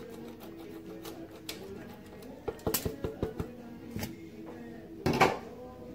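Cheese being grated on a metal box grater: a quick run of short scraping strokes about halfway through, another stroke a second later, then a louder knock near the end.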